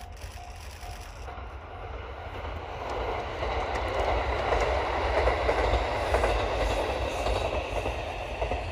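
Three-car KiHa 40 diesel railcar train passing, its diesel engines and wheels on the rails building to a peak midway and fading away. A level-crossing warning alarm beeps steadily, about twice a second, at the start.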